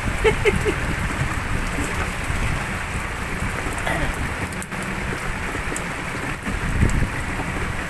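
Heavy rain falling on a small open boat, a steady hiss of drops with a low rumble beneath.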